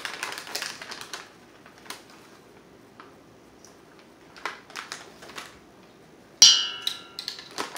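Plastic seasoning bag rustling and small clicks of a measuring spoon at work, then near the end one sharp clank with a short ring as the spoon knocks against the stainless steel mixing bowl.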